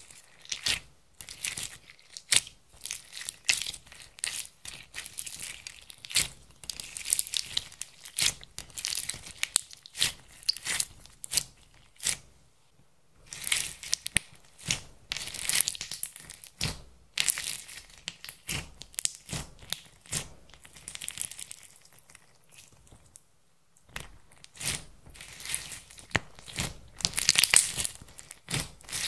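Clear slime mixed with red makeup and glitter being kneaded, stretched and pressed by hand, giving irregular bursts of sticky crackling and tearing sounds, with two brief lulls.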